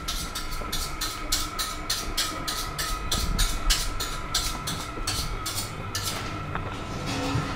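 Rhythmic machine noise: a fast, even chatter of short hissy beats, about three to four a second, over a steady high whine and a low rumble. The beats stop about six seconds in.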